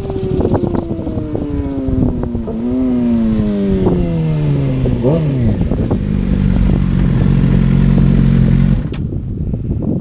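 Suzuki GSX-R 600's inline-four engine slowing down, its note falling steadily with two quick throttle blips on downshifts, then holding a steady lower note before cutting off abruptly near the end. Wind buffets the microphone throughout.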